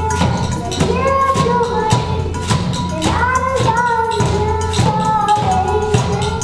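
A young girl singing a melody into a microphone, accompanied by children playing kitchen utensils as percussion, a hand-drummed steel pot among them, tapping out a steady beat of sharp clicks.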